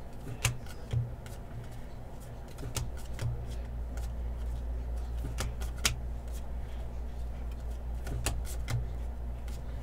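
Trading cards being handled on a table: scattered sharp clicks and taps, several in pairs about half a second apart, over a steady low hum.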